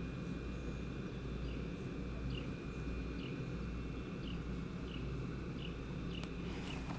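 Outdoor ambience: a steady low rumble under a faint steady high whine, with a short high chirp repeating a little more than once a second from about a second and a half in.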